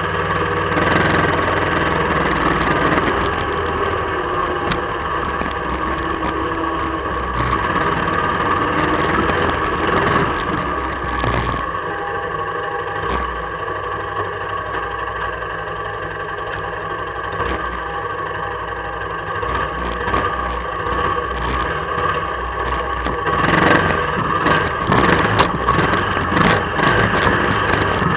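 1999 Honda Fourtrax 300 ATV's single-cylinder four-stroke engine running while riding a rough dirt trail, with frequent knocks and rattles from the machine over roots and ruts. It gets louder in the last few seconds.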